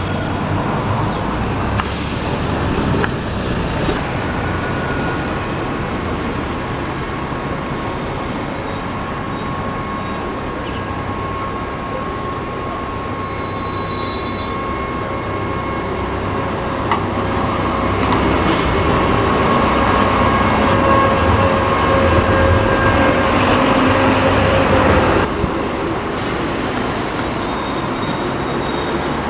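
A rail vehicle running, with several steady whining tones over a rumbling noise, and short hisses of air about two seconds in, in the middle and near the end. One of the tones cuts off suddenly near the end.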